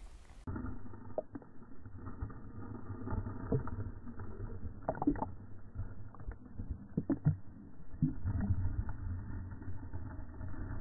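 Creek water heard through a camera held under the surface: a steady low rumble with scattered small clicks and knocks.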